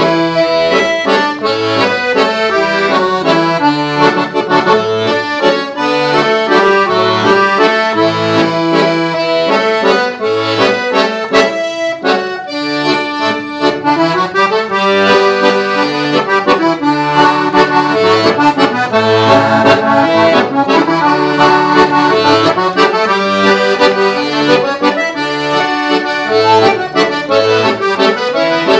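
Todeschini piano accordion played solo in waltz time: a melody on the right-hand keyboard over a regular bass-and-chord accompaniment from the left-hand buttons.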